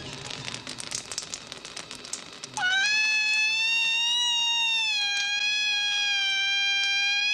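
A loud, high-pitched scream that starts suddenly about two and a half seconds in and is held as one long, steady cry, dipping slightly in pitch partway through. Before it comes a patter of crackling clicks.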